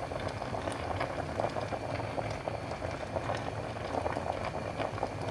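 Steel pot of seasoned meat bubbling on the stove: a steady, dense crackle of many small pops.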